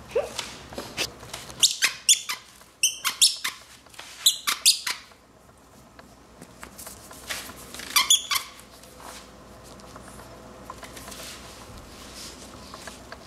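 Squeaky dog toy being squeaked in quick runs of short, high-pitched squeaks, a cluster about two to five seconds in and another around eight seconds.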